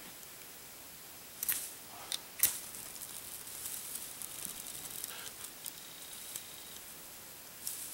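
Ferrocerium fire steel struck with a scraper, three quick sharp scrapes about a second and a half in, showering sparks onto a bundle of grass tinder; faint crackling follows as the damp grass catches.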